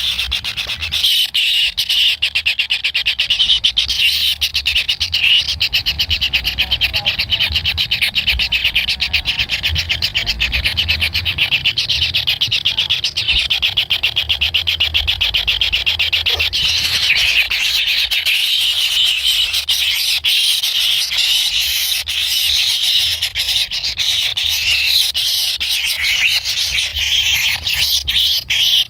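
Kingfisher chicks begging for food: a loud, continuous, high-pitched rattling chatter made of rapid pulses, never pausing.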